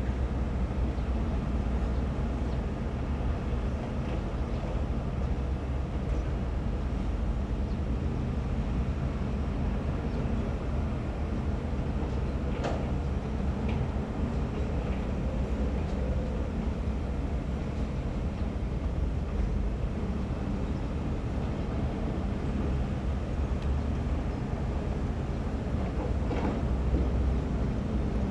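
Diesel engines of hydraulic crawler excavators running steadily under work, a low constant rumble. A few short knocks come through about halfway and again near the end.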